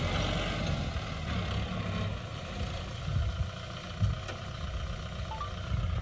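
Kubota M6040 tractor's four-cylinder diesel engine running steadily at low speed as the tractor moves across the field.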